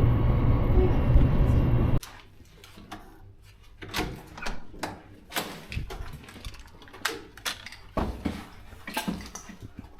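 Wind buffeting the microphone for about two seconds, then an abrupt cut to a quiet stretch with scattered sharp clicks and knocks.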